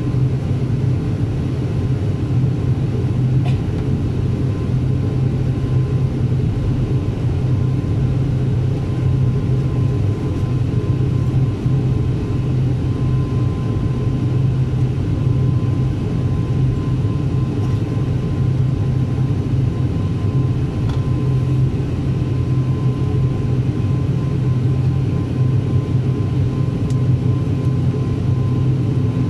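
Turboprop airliner's engines and propellers heard from inside the cabin while the plane taxis after landing: a steady low drone with a thin high tone held over it.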